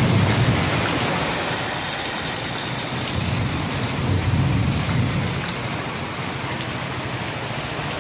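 Heavy rain pouring onto wet ground, a steady hiss, with a low rumble that swells near the start and again about four seconds in.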